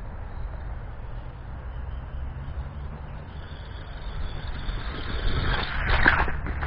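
WLtoys 12428C RC truck with metal diff gears driving, its electric motor and drivetrain running. It gets louder about five and a half seconds in as it comes across the concrete pavers, over a low rumble.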